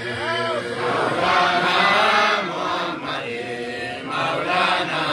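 Devotional Islamic chanting in praise of the Prophet (zikr), sung in long held notes that bend up and down in pitch.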